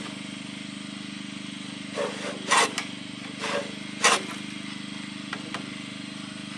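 Buck saw cutting through a 6x6 timber post by hand: a few uneven saw strokes, mostly between two and four seconds in. A steady low engine hum runs underneath.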